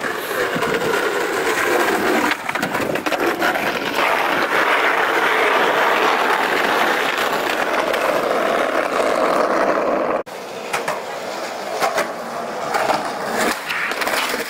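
Skateboard wheels rolling on asphalt right by the microphone, a steady loud rolling noise. About ten seconds in it cuts off suddenly, and a quieter stretch follows with several sharp clacks of the board on the pavement.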